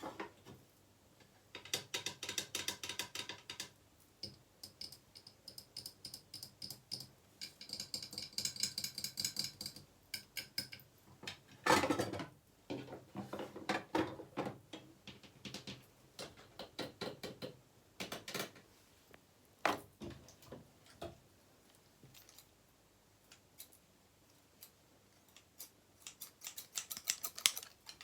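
Fast tapping and scratching on hard objects in quick bursts, some taps ringing with a clear tone; one hit about twelve seconds in is louder, and the strokes thin out for a few seconds before a dense burst near the end.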